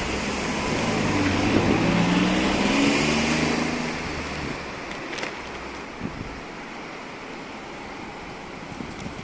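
A motor vehicle passes: its engine hum swells over the first three seconds, then fades into a steady wash of wind noise.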